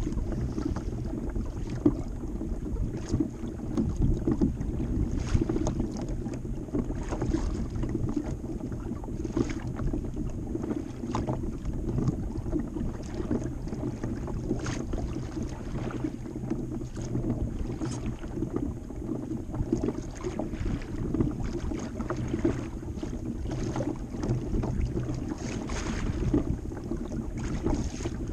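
Water slapping and lapping against a kayak hull as it rides a light chop, with irregular small splashes, under steady wind buffeting the microphone.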